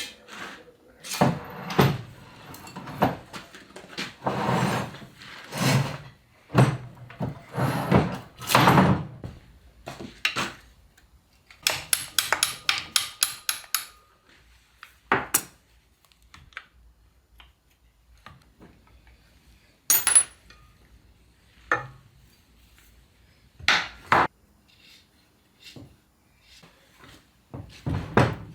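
Metal gearbox parts and tools clanking and scraping on a workbench during a Land Rover Series gearbox teardown, with a socket ratchet clicking rapidly for about two seconds near the middle and single knocks after it.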